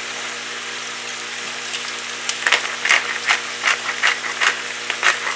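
Chopped vegetables frying in oil and butter in a stainless steel skillet, a steady sizzle. From about two seconds in, a hand salt grinder twisted over the pan gives a run of sharp clicks, a few a second.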